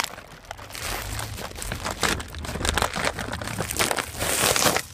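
Plastic bag crinkling and rustling as soft plastic fishing lures are pulled out of it, with louder crinkles about two seconds in and near the end.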